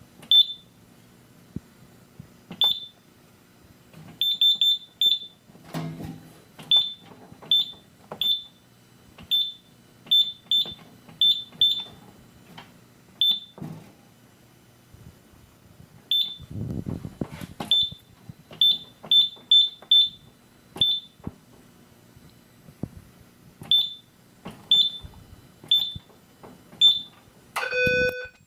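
Short, high single-pitched beeps from a Simplex 4100U fire alarm panel's keypad, one per key press, coming at an irregular pace and sometimes in quick runs of three or four, with faint button clicks. Near the end the fire alarm notification appliances start up with a loud, pulsing horn tone.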